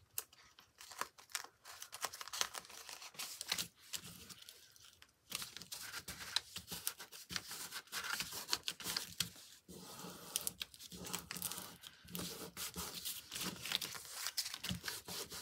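Tissue paper crinkling and rustling under the hands as it is folded and pressed down, in many small irregular crackles.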